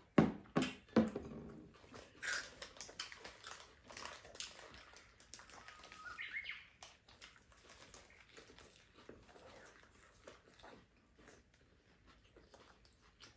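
A ceramic mug knocks down onto a tabletop a few times in the first second, the loudest sounds here. Then come the small crinkles and clicks of eating wraps held in paper, with birds chirping now and then outside.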